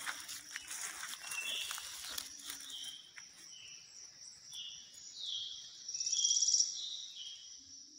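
Outdoor insect chorus: a steady high-pitched chirring, with a series of short high chirps and a brief rapid trill about six seconds in.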